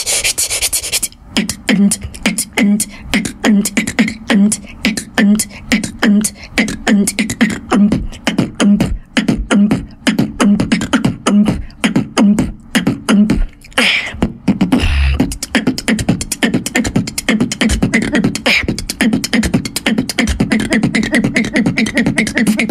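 A young woman beatboxing: rapid mouth clicks and hi-hat sounds over a steady beat with deep bass pulses about twice a second. About two-thirds of the way through comes a short hiss and a low boom, after which a held, hummed bass line runs under quick clicks.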